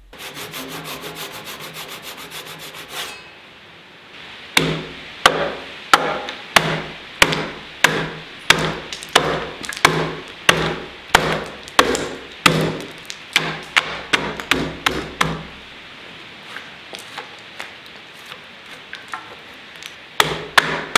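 Hatchet chopping out the waste between saw kerfs on the tenon of a timber-frame post, each blow splitting off slices of wood, about one and a half blows a second. It opens with a few seconds of fast, even rasping. After a long run of blows come a few lighter taps, and the heavy chopping starts again near the end.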